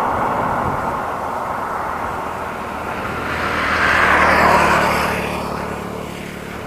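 A road vehicle passing by, its engine and tyre noise swelling to a peak about four seconds in and then fading away.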